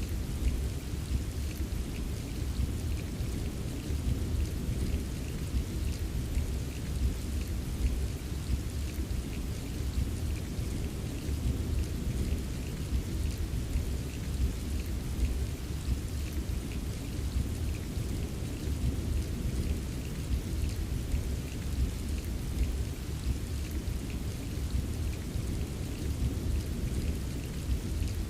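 Steady rain with many small drops ticking, over a continuous low rumble of thunder rolling in the distance.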